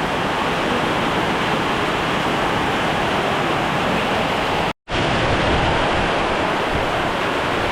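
Heavy tropical rain pouring down, a steady loud hiss of water. All sound cuts out briefly a little under five seconds in, then the rain resumes.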